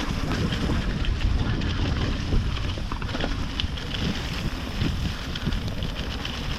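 Wind buffeting the microphone of a camera on a mountain bike while riding, a steady low rumble with scattered small clicks and rattles from the bike on the trail.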